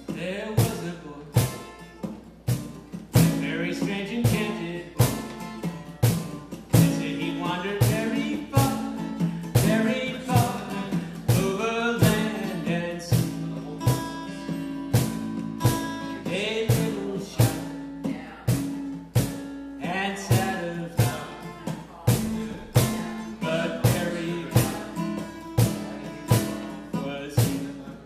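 A man singing to his own steel-string acoustic guitar, strummed in a steady rhythm of about one and a half strokes a second under the voice.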